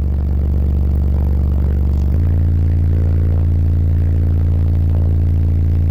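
Three 15-inch American Bass car subwoofers playing a deep sustained bass note at high volume inside the vehicle's cabin; the note steps to a slightly higher pitch about two seconds in. The car's panels rattle and buzz under the bass.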